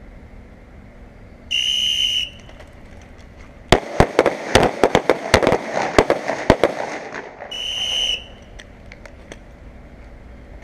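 A whistle blast starts the string. About two seconds later a line of pistols fires a ragged volley, two shots each from several shooters, over about three seconds. A second whistle blast closes the timed string.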